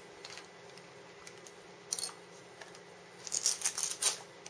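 Plastic frame and silicone cushion of a ResMed Mirage Quattro full-face CPAP mask being handled and taken apart: light plastic clicks and rustling, with a single click about two seconds in and a quick run of clicks near the end.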